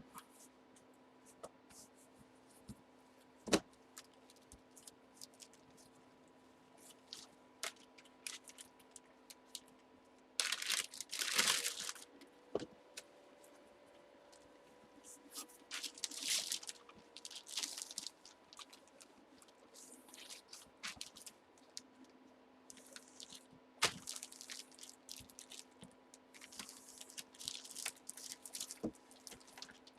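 Hands handling trading cards and plastic packaging: scattered light clicks and taps, with several bursts of crinkling plastic, the longest about ten seconds in and again through the last third. A faint steady electrical hum runs underneath.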